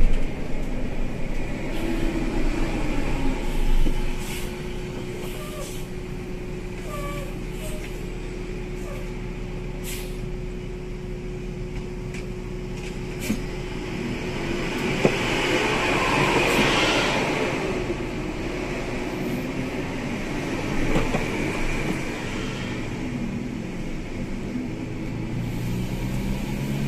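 Inside a bus's cabin: the engine's low hum and road noise as it rolls slowly through a toll gate. A thin steady whine runs through the first half, and a louder rushing swell comes a little past halfway.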